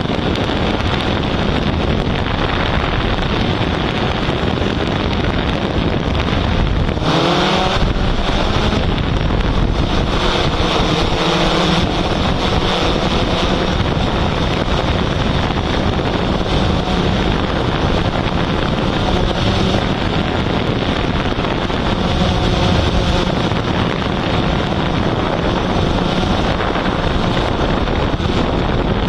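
Steady hum and rush of a hexacopter drone's spinning propellers, mixed with wind on its onboard microphone; about seven seconds in the motor pitch briefly shifts upward as the drone manoeuvres.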